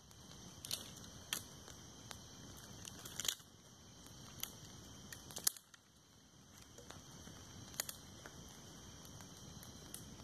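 Wood campfire crackling, with sharp pops every second or so, the loudest about five and a half seconds in, over a steady high-pitched hiss.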